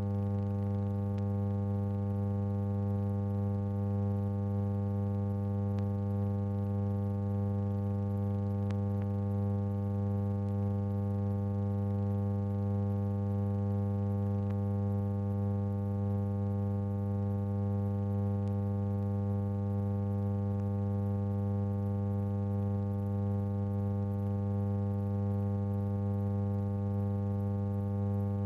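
Steady, unchanging electrical hum with nothing else: the blank soundtrack of silent film footage.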